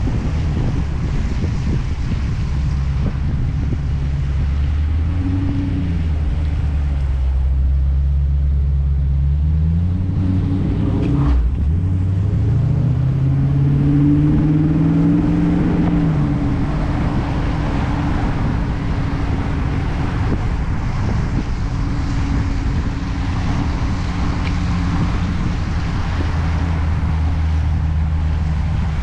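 A Dodge Challenger R/T's 5.7-litre HEMI V8 running at low speed on a mountain climb, heard from a hood-mounted camera with wind noise. The engine eases off around a hairpin bend about eight seconds in, and after a brief knock it rises in pitch as the car accelerates out of the turn, then settles to a steady run.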